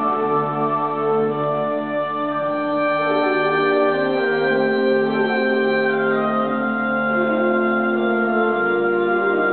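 Concert band of woodwinds, brass, tubas and string basses playing full, sustained chords that shift slowly, over a pulsing low bass note.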